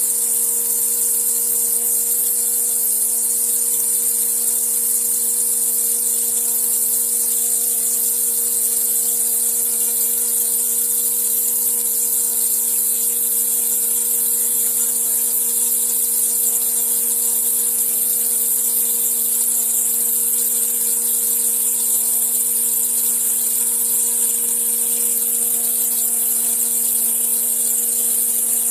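CNC stone router spindle running at steady speed, its bit cutting a groove in a water-cooled granite slab: a steady whine over a bright hiss, unchanging throughout.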